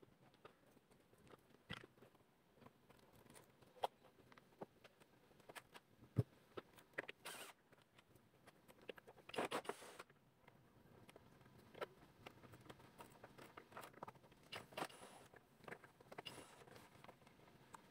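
Faint scattered clicks, taps and short scrapes of an air conditioner's plastic casing being handled and taken apart, with a longer scraping rustle about nine and a half seconds in.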